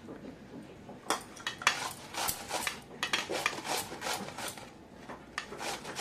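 Cucumber being grated on a round stainless-steel grater over a steel plate. It is quiet for about a second, then there is a sharp metallic clink, then a run of quick scraping strokes, about three a second, with steel knocking on steel.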